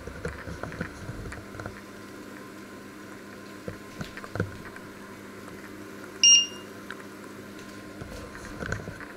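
A single short electronic beep about six seconds in, typical of an electric hob's touch controls being pressed, over a steady low background with a few light knocks.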